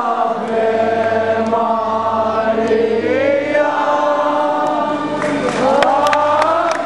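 A crowd singing a hymn together, with long held notes that slide up into the next note.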